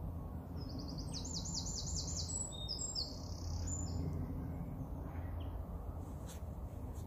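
A small songbird singing: a quick run of high, falling notes starting about half a second in and lasting about three seconds, with a few more notes after, over a steady low background rumble.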